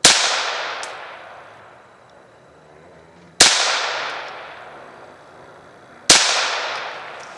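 Three shots from a Ruger Mark III .22 LR semi-automatic pistol, slowly spaced about three seconds apart. Each is a sharp crack followed by a long fading echo.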